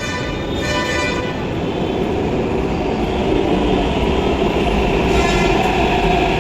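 Hyderabad Metro train running at the station platform, a loud steady rumble and hiss that grows slightly, with a high whine about half a second in and again around five seconds.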